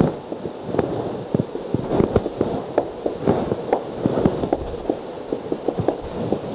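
Marker tapping and scraping on a whiteboard while writing and drawing: irregular sharp clicks, a few a second, over a steady hiss.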